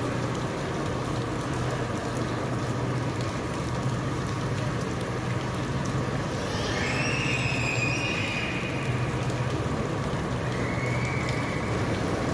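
Steady urban background noise with a low hum, picked up while walking. A faint high whistling tone comes in for about two seconds in the middle and briefly again near the end.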